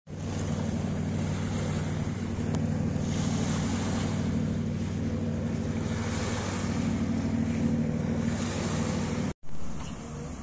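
Small waves lapping and washing on a pebbly lakeshore, the hiss swelling and fading every few seconds, over the steady low drone of a motorboat engine out on the lake. The sound breaks off briefly near the end.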